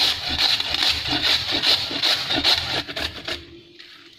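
A peeled raw potato grated by hand on a metal grater: rhythmic scraping strokes, about two and a half a second, that stop about three seconds in.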